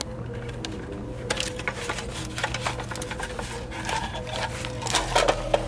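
Plastic clicks and paper rustling as a vending machine bill acceptor's cash box is opened and a stack of dollar bills is pulled out, the handling busier from about a second in and loudest near the end. A steady electrical hum runs underneath.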